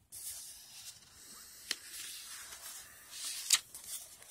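Paperback book pages being turned and rubbed by hand, giving a soft papery rustle. Two sharp page flicks snap out, the first a little under two seconds in and a louder one about three and a half seconds in.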